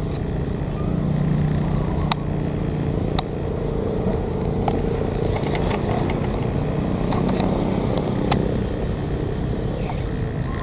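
Steady low rumble like a running engine, with a few short sharp clicks.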